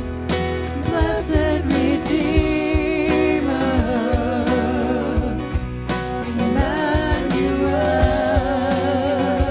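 Contemporary worship band playing, with a singer holding long wavering notes over steady drum and cymbal hits.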